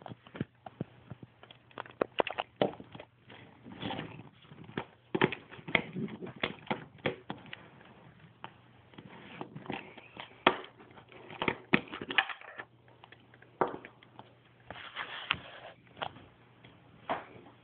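Handling noise: irregular clicks and taps with patches of rustling between them, over a faint steady low hum.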